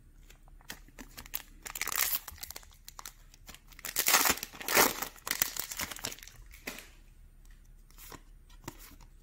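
A Magic: The Gathering booster pack's wrapper crinkling and tearing as it is ripped open, in several bursts, with a few light clicks.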